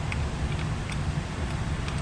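A few light, scattered clicks of hand tools working the ignition coil loose in the engine bay, over a steady low rumble.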